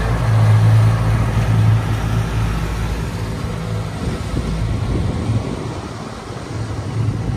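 An engine running steadily with a low hum, which drops and wavers about halfway through.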